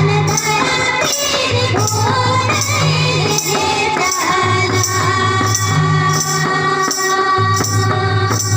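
A song: a sung melody over a steady beat, with jingling percussion strokes about twice a second and a repeating bass line.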